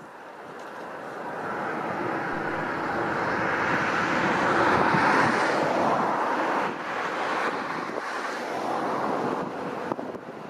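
A vehicle passing by: a rushing noise that swells to a peak about halfway through and then fades away.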